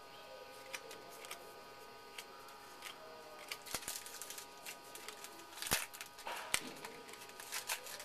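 Baseball cards being handled and sorted by hand: scattered light clicks and paper rustles as cards slide against each other, with a few louder rustles a little past the middle.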